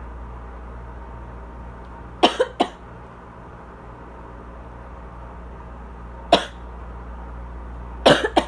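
Dry asthmatic coughing: a quick pair of coughs about two seconds in, a single cough in the middle and another pair near the end, over the steady hum of a loud air conditioner.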